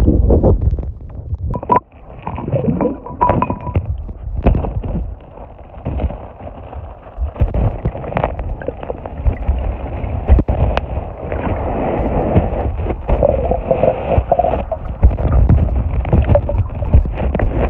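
Water heard through an iPhone 12's microphone held under the surface of a river: muffled gurgling and sloshing of moving water, with irregular knocks and thumps.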